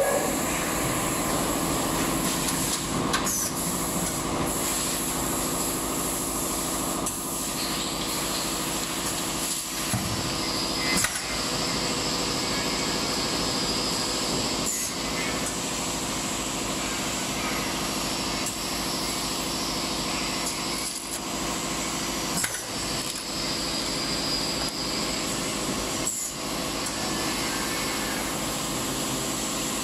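An automatic vacuum cup sealing machine running steadily: a mechanical hum with stretches of hissing air and occasional sharp clacks as the sealing press cycles.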